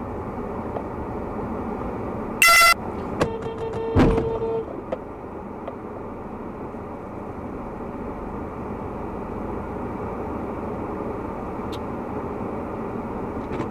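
Inside a car with a steady cabin hum: a short, loud car horn honk about two and a half seconds in, then a longer, lower horn tone with a hard thud about four seconds in, a low-speed bump with the pickup truck stopped just ahead.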